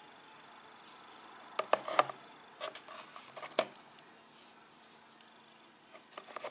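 Dyed Easter eggs clicking against each other and the plastic bowl as a hand picks them up and turns them over: a few scattered light knocks, loudest about two seconds in.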